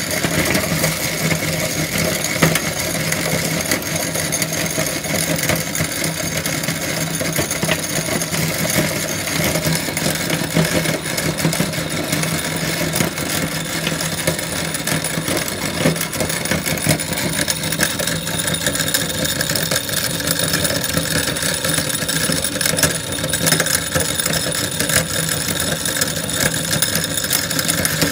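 Electric meat grinder running steadily with a constant motor hum, grinding popcorn through its cutting plate, with a fine crackle of popcorn being crushed.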